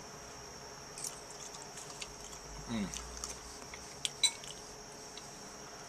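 A few light clinks of a fork on a dish, about a second in and again near four seconds, with a short falling hum of a voice in between.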